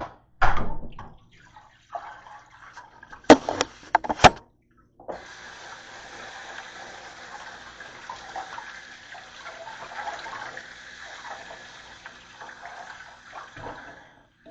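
Kitchen faucet running water into a plastic colander of green grapes being rinsed in a stainless-steel sink: a steady splashing that starts about five seconds in and stops near the end. Before it, a few loud knocks and clatters.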